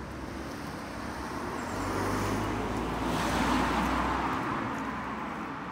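A car driving past on the road, its noise building, loudest a little after halfway, then fading away.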